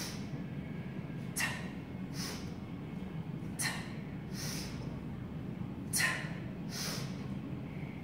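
Sharp, forceful breaths through the nose and mouth, in pairs about every two seconds, paced to the reps of one-arm kettlebell snatches. A steady low hum runs underneath.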